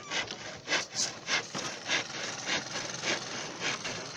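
Hand saw cutting through a piece of wood, with regular back-and-forth strokes about two a second.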